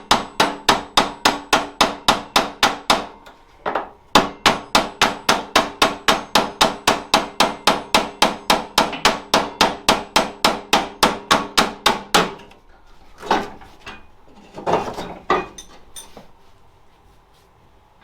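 Hammer blows on a ringing metal part, struck fast and evenly at about four a second. The blows pause briefly about three seconds in, then go on and stop about twelve seconds in. A few softer, scattered knocks follow.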